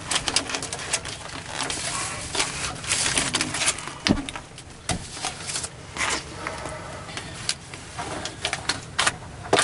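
Tape being peeled off a roll and pressed onto a sheet-metal return air box, with irregular crackling, rustling and light tapping from handling the metal.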